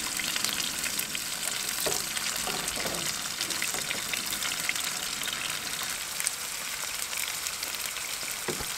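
Bear backstrap sizzling as it fries in rendered bear fat in a stainless steel pan, a steady hiss with scattered small crackles and pops.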